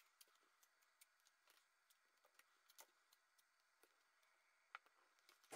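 Near silence, with a few faint, scattered light clicks and taps from hands handling the plastic embroidery hoop and its taped faux-leather layers.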